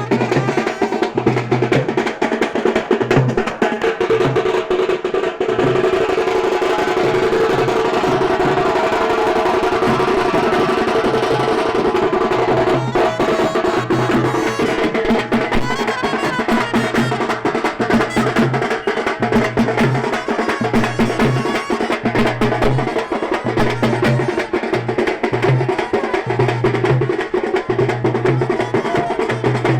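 Music led by drums and percussion, with a steady, busy beat and a held melody running over it.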